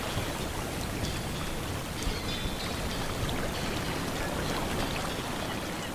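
Steady rushing and splashing of water, with faint high tones coming and going and a few small ticks.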